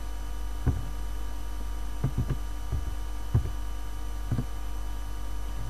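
Steady electrical mains hum, with about seven short, soft taps of computer keyboard keys scattered through the middle as a time is typed in.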